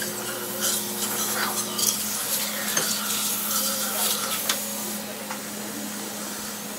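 Busy dentist office: small metal dental instruments clinking and tapping, over a steady hum and a hiss that stops about five seconds in.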